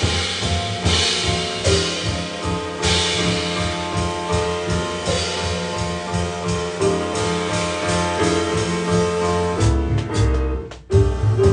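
Live small jazz band playing: drum kit with cymbals over a plucked upright double bass and sustained pitched notes. Near the end the band drops out for a moment, then comes back in on a sharp accent.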